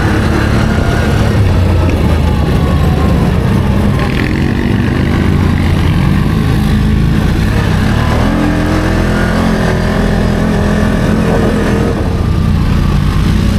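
Can-Am G2 ATV engine running under load while riding, its pitch rising as it accelerates about eight seconds in and again near the end.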